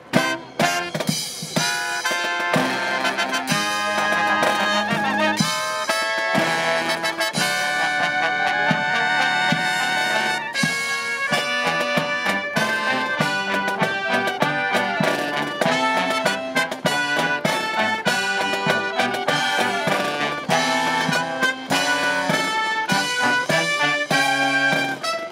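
Brass marching band playing: trumpets, trombones, saxophones and sousaphone with drum, after a brief break right at the start.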